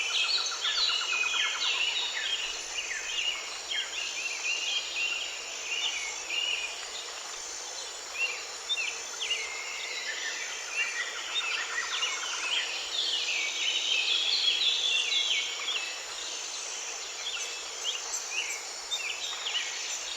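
Many small birds chirping and singing in quick, overlapping phrases over a steady high hiss of insects.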